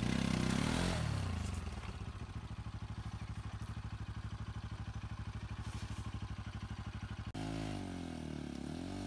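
Motorcycle engine running at low revs with an even pulse. It is revved up just as the rider works it up a rocky dirt track, then eases back after about a second. Near the end it cuts suddenly to another motorcycle engine whose pitch rises and falls.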